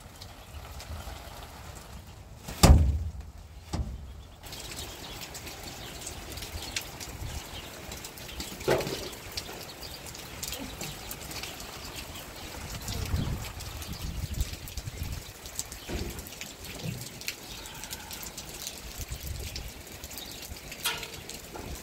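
Rain pattering steadily on the ground and surfaces around a farmyard, with gusts of wind. A single loud thump comes a few seconds in.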